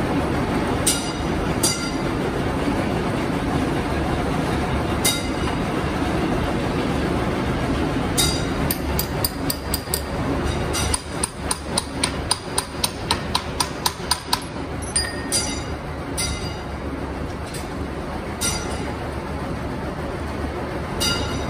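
Cutter grinder's electric motor and grinding wheel running with a steady hum while a gear-cutting milling cutter is sharpened against the wheel. Sharp metallic clicks come as the cutter is turned tooth by tooth, a quick run of about three a second for several seconds in the middle, scattered ones otherwise.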